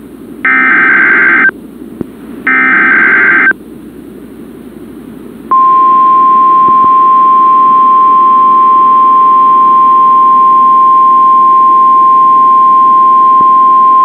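NOAA Weather Radio Emergency Alert System test: two one-second bursts of SAME header data tones, a harsh warbling screech, a second apart. After about two seconds of radio hiss, the steady 1050 Hz warning alarm tone starts about five and a half seconds in and holds.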